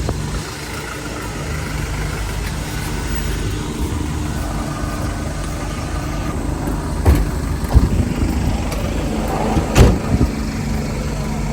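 A vehicle engine idling steadily, with a few sharp knocks about two-thirds of the way through and a louder one near the end.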